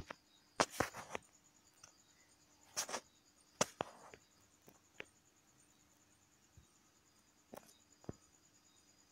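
Fingertip taps and brushes on a smartphone touchscreen: a dozen or so short, sharp ticks at uneven intervals, a few of them in quick pairs.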